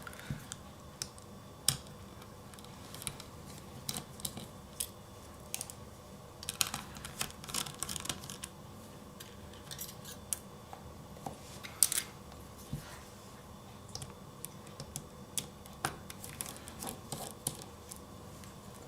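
Small screwdriver turning out the four little screws that hold a laptop hard drive in its bracket: light, irregular clicks and short scrapes, with a few clusters of quick ticks.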